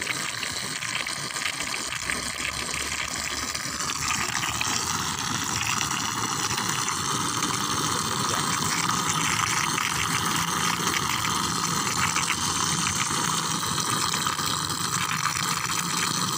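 Steady rush of flowing water, an even hiss with no break, growing a little brighter about four seconds in.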